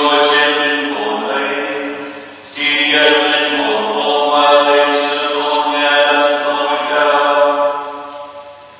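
Voices singing a slow hymn in long held phrases, with a short break after about two and a half seconds; the singing fades out near the end.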